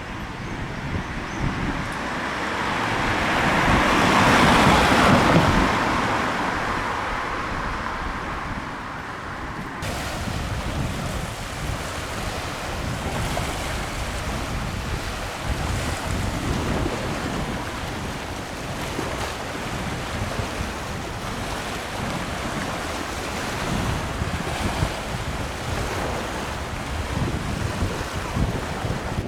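Sea waves washing on the shore, with wind buffeting the microphone. A louder surge of rushing noise swells and fades over the first few seconds, then the wash goes on more evenly with gentle surges.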